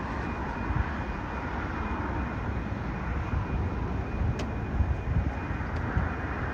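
Jet airliner's engines at takeoff thrust, a steady rumble as the plane climbs away.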